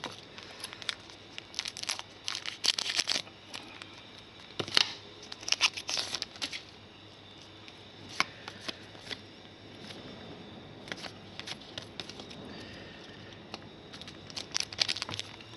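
A foil trading-card pack being torn open by hand, its wrapper crackling and crinkling in quick bursts, followed by the lighter clicks of cards being handled and slid against each other.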